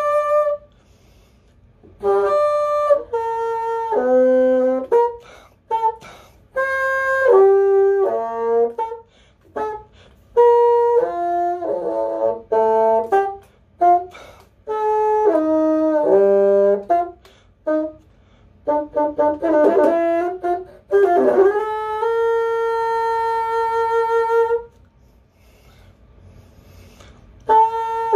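Solo bassoon playing an unaccompanied melody in short phrases separated by brief rests. It holds one long note a few seconds before the end, pauses, then starts the next phrase right at the end.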